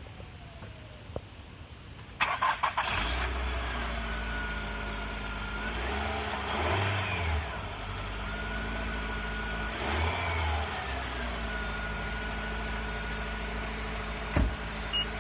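Donor car's engine cranked and started about two seconds in, then running at idle with a steady whine and revved up briefly twice, to feed charge through jumper cables to a car with a dead battery.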